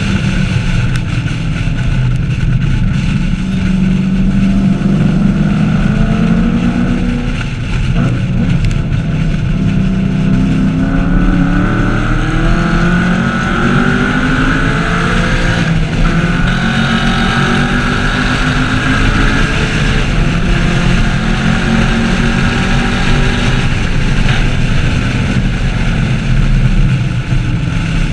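The V8 of a 2014 Camaro SS 1LE being driven hard on a racetrack. The engine pitch climbs and falls repeatedly as it accelerates, shifts and slows, with a break about 8 seconds in and another about 16 seconds in.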